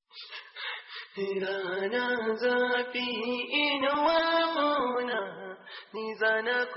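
Chant-like singing: a song whose held notes step up and down in pitch, filling out about a second in.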